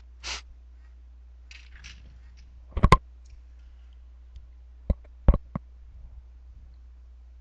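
Computer mouse clicking: a quick cluster of about three sharp clicks about three seconds in, then three more around five seconds in, over a steady low hum. A short hiss comes right at the start.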